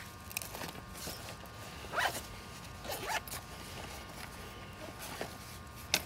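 Several short rustling, scraping sounds of hands handling things at the open condensing unit, about 2, 3 and 5 seconds in and again near the end, over a faint steady hum.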